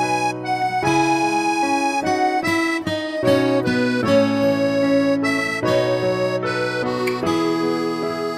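Background music: a melody of sustained reedy notes over held chords, with a steady pulse of note changes.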